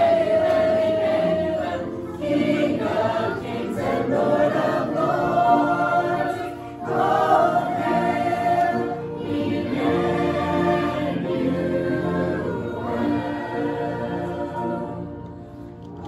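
Mixed choir of men's and women's voices singing a hymn together, in phrases with brief breaths between them, dying down near the end.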